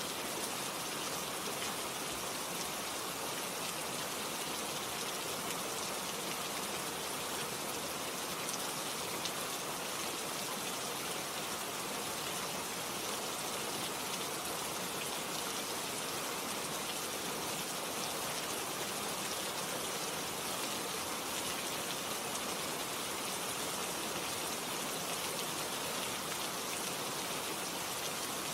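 Steady rain: an even hiss with a dense patter of drops that does not change, from a relaxing rain-sound track.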